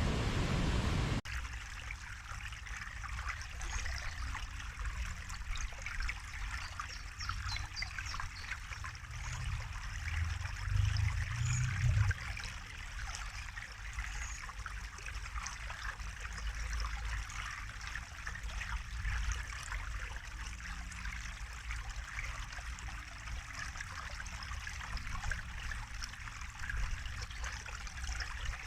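A small stream trickling and splashing over rocks. It follows a louder, even rushing noise that cuts off abruptly about a second in. A low rumble swells briefly near the middle.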